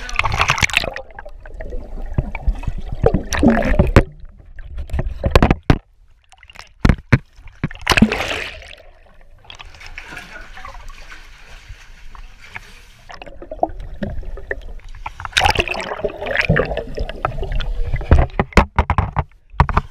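Lake water sloshing and splashing around a waterproof action camera at the surface, muffled as it dips under and comes back up, with a swimmer splashing close by. Several sharp knocks come partway through.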